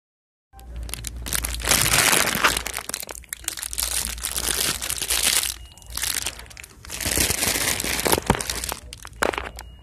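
Clear plastic wrapping around a squishy toy crinkling as it is handled, in two long spells with a short lull in between.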